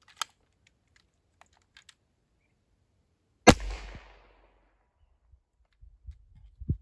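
AEA Challenger .30 calibre PCP air rifle fired once without its suppressor: a single sharp, loud report about three and a half seconds in, trailing off over about half a second. A few light clicks of handling come before it.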